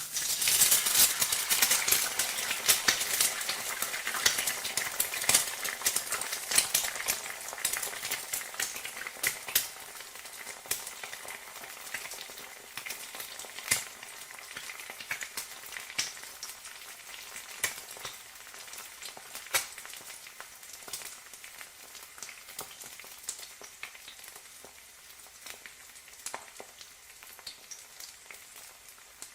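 An egg frying: a steady high sizzle dotted with sharp crackling pops. It starts suddenly, is loudest over the first few seconds, then slowly quietens with fewer pops.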